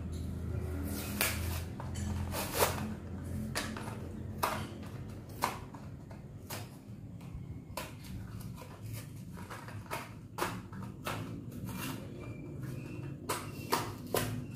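Hot Wheels blister pack being opened by hand: irregular crackles and sharp clicks of stiff plastic and card being bent and pulled apart, over a low steady hum.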